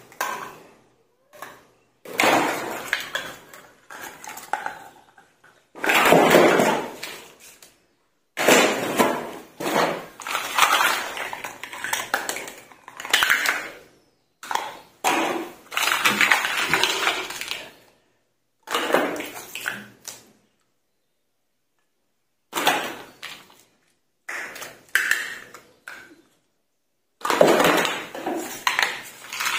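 Small plastic toy dishes, cups and pans clattering and clicking against each other and the table as they are picked up, stacked and put down, in bursts of a few seconds with short gaps of silence between.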